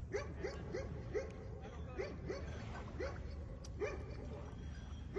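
A dog barking repeatedly: about ten short barks at an uneven pace.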